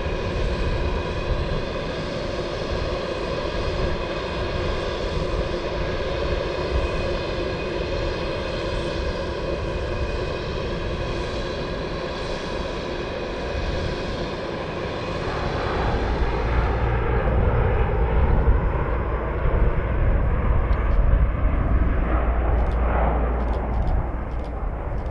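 Lockheed C-130H Hercules' four Allison T56 turboprops running on the ground: a steady whine of several held tones over a rumble. About sixteen seconds in this gives way to a louder, deeper rumble of the Hercules in flight.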